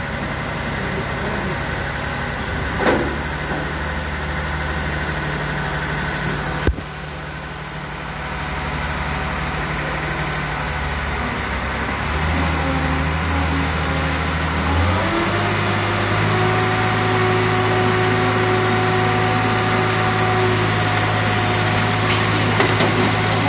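Iveco truck's diesel engine idling steadily. About halfway through its speed steps up twice and then holds at the higher pitch. A single sharp knock is heard a little before that.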